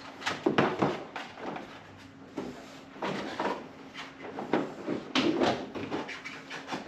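Plastic front bumper cover of a 2020 Mustang GT knocking and rattling in irregular clusters as it is worked back into place on the car. The loudest knocks come about half a second in and again around five seconds in.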